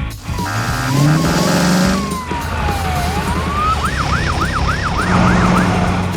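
Police siren sound effect in an animated cartoon: after a fast-pulsing tone in the first couple of seconds, a slow wail falls and rises again, then breaks into quick yelping whoops, about three or four a second, before stopping near the end.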